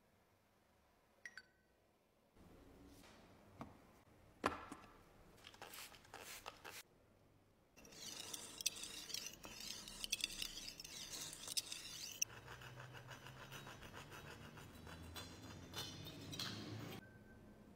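Straight razor blade being honed on a flat sharpening hone. A steady scraping hiss starts about eight seconds in, turns lower and rougher a little after twelve seconds, and stops about a second before the end. Before it there are a few light clicks and taps as the razor is handled.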